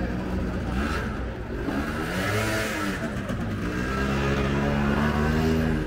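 A small motorbike engine revving up and down, then running at a steady pitch and growing a little louder as it comes close.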